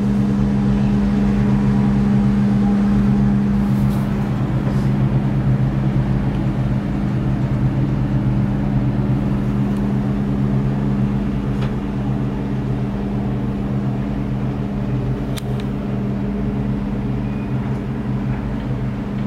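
Steady droning hum inside a moving POMA cable-car gondola cabin, with a few faint clicks.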